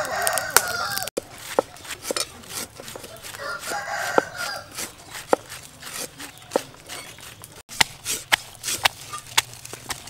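A rooster crows twice: one crow right at the start, cut off about a second in, and another around four seconds in. Sharp clicks and knocks of food preparation run underneath, and near the end they turn into quicker knocks of a stone pestle pounding garlic in a stone mortar.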